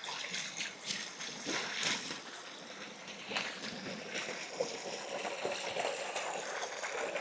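Shallow river water running, with a few soft splashes.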